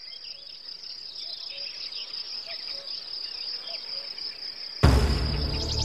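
Crickets chirring steadily at a high pitch, with a few faint chirps and calls, slowly getting louder. About five seconds in, music comes in suddenly and loudly on a deep low chord.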